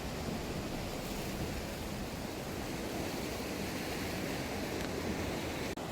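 Sea surf washing along a rocky shore, a steady rushing noise.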